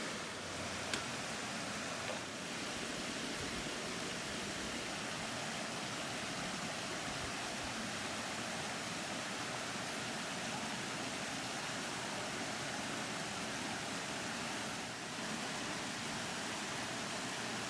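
Steady rush of creek water, an even hiss with no rhythm, with a faint click about a second in.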